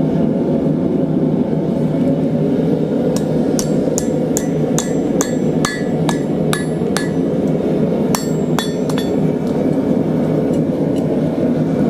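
Hand hammer blows on a hot cut driven into hot steel, a run of sharp ringing strikes about two to three a second. They start about three seconds in and pause briefly near the middle. Under them is the steady roar of the lit forge.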